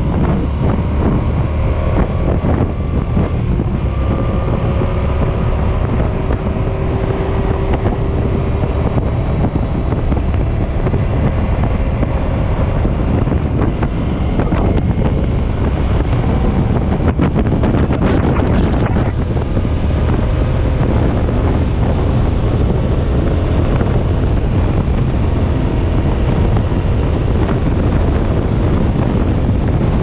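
Suzuki M50 motorcycle cruising at highway speed: wind rushing over the microphone, with the bike's V-twin engine running steadily underneath.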